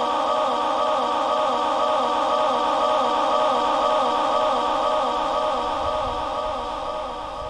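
A male reciter's voice in Quran recitation (tilawat), holding one long, slightly wavering note through a microphone and sound system. It fades over the last couple of seconds.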